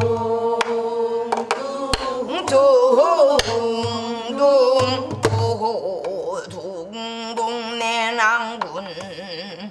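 A woman singing pansori-style in long, wavering held notes that bend and slide. A buk barrel drum accompanies her with sharp stick strokes and dull hand thumps on the drumhead.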